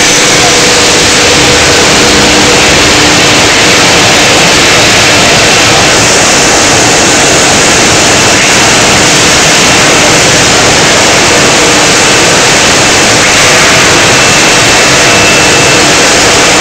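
VZH-165 welded tube mill running: loud, steady machine noise with a few faint steady tones underneath, growing a little brighter about six seconds in.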